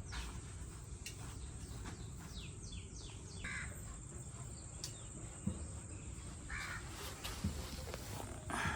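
Outdoor background noise with birds calling: a quick run of falling chirps, then a few short harsh caws like a crow's.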